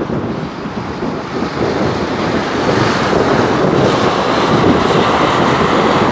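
Leonardo AW109SP GrandNew twin-turbine helicopter flying past, a steady whooshing rotor and engine noise that grows louder about halfway through.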